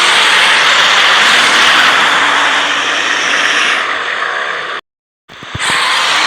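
Giant movie-monster roar sound effect: a long, loud, harsh roar that cuts off abruptly about five seconds in, followed after half a second of silence by the start of another roar.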